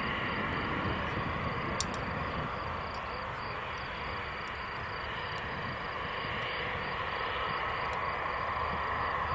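Embraer 190's General Electric CF34-10E turbofans at low taxi power, a steady distant rumble and hiss as the jet taxis. A single sharp click comes about two seconds in.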